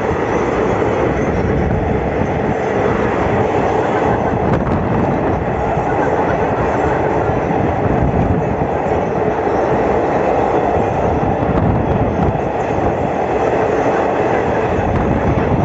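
Steady running noise and wind of a moving passenger vehicle, heard at an open barred window, even and unbroken throughout.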